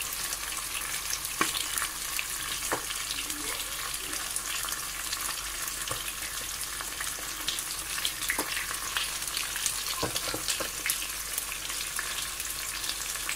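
Slices of homemade beef sucuk frying with eggs in hot oil in a frying pan: a steady sizzling hiss with scattered sharper pops and crackles.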